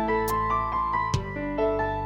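Background music: a melody of held keyboard-like notes stepping from pitch to pitch, with a sharp percussive hit about a second in.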